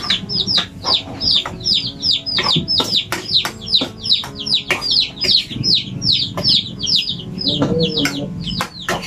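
Chicks peeping continuously, several short high calls a second, each sliding downward, overlapping one another. A few sharp clicks sound among them.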